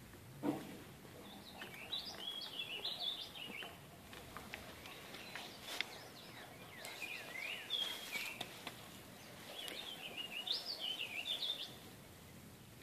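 A songbird singing three quick, chirpy phrases a few seconds apart over faint outdoor background noise, with a short low thump about half a second in.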